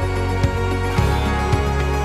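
Background music: sustained chords over a steady beat of about two hits a second.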